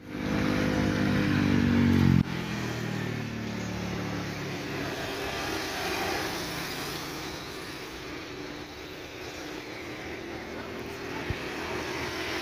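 Steady, even jet-engine noise from a Boeing 777-300ER's GE90 turbofans as the airliner moves along the runway, heard from a distance. It opens with a louder engine hum of clear pitch that cuts off abruptly about two seconds in.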